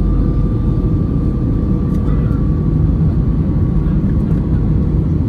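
Airbus A320-200 cabin noise in flight, heard from a window seat: a steady low roar of the engines and airflow. Two faint steady tones hum through it.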